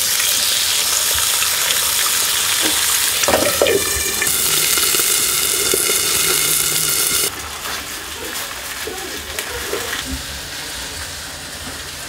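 Eggs frying in a lidded frying pan on a gas burner: a loud, steady sizzling hiss that drops off abruptly about seven seconds in, leaving quieter sizzling.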